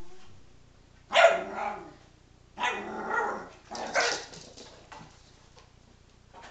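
Small dogs barking at play: three loud spells of barking about a second apart in the first two-thirds, then quiet shuffling.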